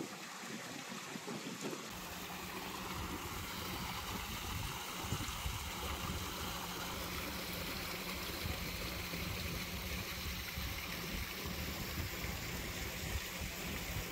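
Small waterfall spilling over a rock wall and splashing steadily into a koi pond. A low rumble joins about two seconds in.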